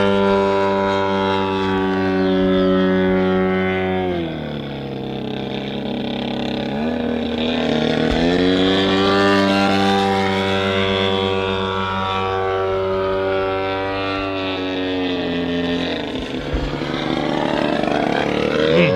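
DA150 150cc twin-cylinder two-stroke gas engine of a giant-scale RC biplane in flight, running at high throttle. Its note drops to a lower pitch about four seconds in, climbs back up around seven to eight seconds, drops again near sixteen seconds and climbs again at the end.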